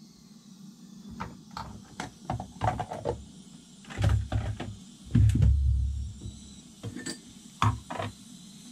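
Galley items being handled on a counter: scattered light clinks and knocks of metal pots and utensils, with a few dull low thumps near the middle.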